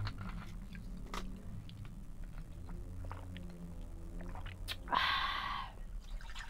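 Someone drinking a sweet drink from a plastic bottle: small clicks from handling the bottle and soft mouth and swallowing sounds, then a short breathy burst about five seconds in, the loudest sound.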